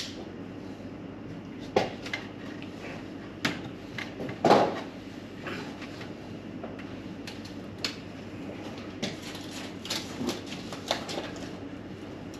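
Scattered knocks and clicks of tools and building materials being handled during partition work, with a louder thump about four and a half seconds in, over a steady low hum.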